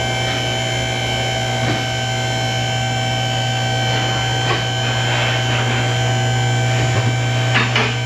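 Car lift's electric hydraulic pump motor running with a steady hum, raising a car, with a few faint clicks along the way.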